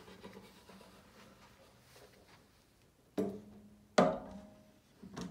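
Two hollow wooden knocks about a second apart, the second louder, each followed by a short ringing tone, then a lighter knock near the end.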